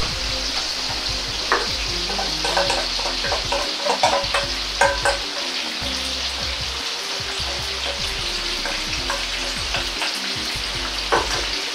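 Corn and edamame kakiage batter deep-frying in a wok of hot oil, about 180 °C. The oil gives a steady, busy sizzle as more batter is spooned in, with a few light clicks of the spoon.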